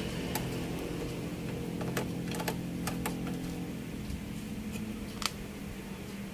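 Screwdriver unscrewing the heatsink screws from a home theatre amplifier board: scattered small metallic clicks and ticks, a sharper one a little after five seconds in, over a steady low hum.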